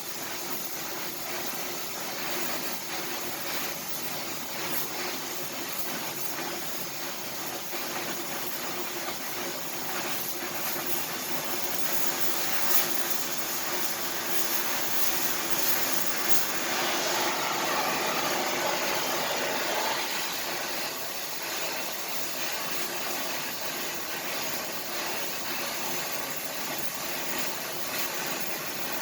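Welding arc crackling and hissing steadily, getting somewhat louder through the middle stretch.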